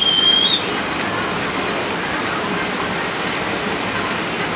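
Steady rain-like hiss of many swimmers' arm strokes splashing in the river. A short, high whistle sounds at the very start, rising briefly then holding for about half a second.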